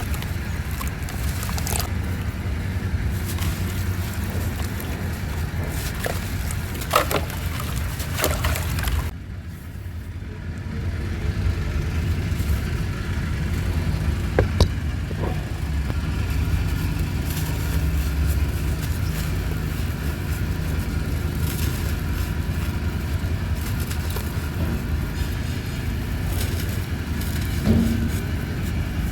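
Steady low engine rumble from a motor vehicle running nearby, with a few light clicks and knocks. It drops away briefly about nine seconds in, then comes back.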